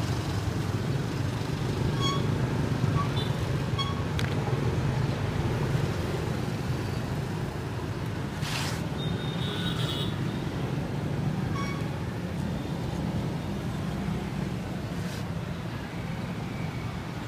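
Steady low rumble of street traffic, with a few faint higher tones and a brief hiss about eight and a half seconds in.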